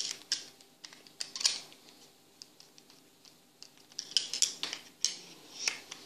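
Scattered light metal clicks and scrapes of a small screwdriver working the Phillips-head screw inside a Yale 851 padlock, coming in two clusters, about a second in and again from about four seconds in.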